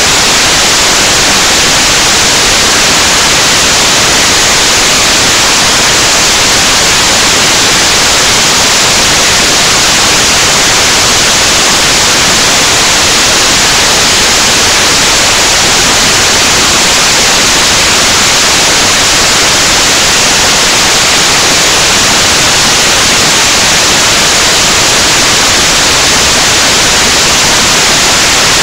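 Loud, steady static hiss like white noise, even and unchanging throughout.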